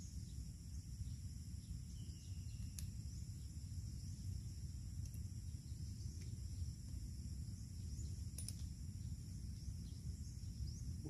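Steady high-pitched chorus of insects, with a low steady rumble underneath and a few faint short chirps and clicks.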